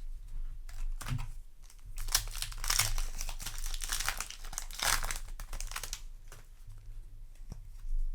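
Foil booster-pack wrapper being torn open and crinkled, a dense crackling run in the middle few seconds, with lighter rustling of the wrapper and cards before and after.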